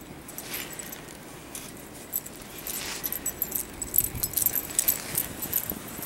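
Small metal pieces on a Siberian husky's collar and lead jingling and clinking as the dog moves about. The clinks come scattered at first, then crowd together from about two seconds in and thin out near the end.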